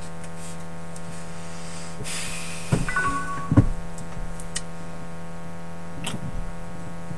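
Steady electrical hum with a brief scuffle of noise, short tones and knocks about two to three seconds in, ending in a sharp thump; a few faint clicks follow.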